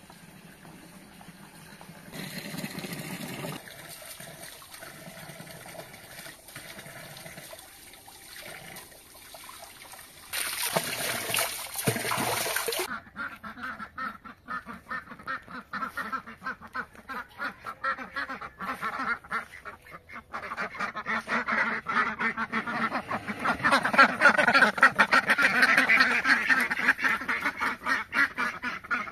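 A flock of domestic ducks quacking in a rapid, continuous chatter that grows louder in the second half. About ten seconds in there is a short, loud rush of noise.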